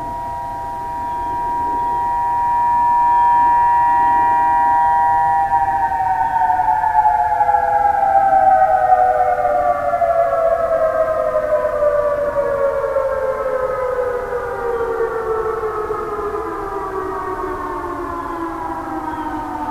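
Outdoor tornado warning siren during a test, sounding a chord of several steady tones, then winding down: from about five seconds in, its pitch falls slowly and evenly to the end.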